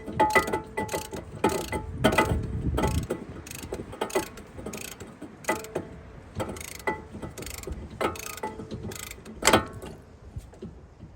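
Hand ratchet clicking in short irregular runs as it winds a tool that compresses the brake caliper piston back into the caliper.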